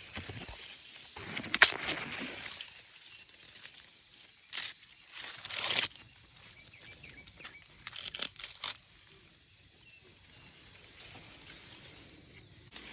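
Corn stalks and leaves rustling in irregular bursts as ears of corn are picked, with a sharp snap about one and a half seconds in.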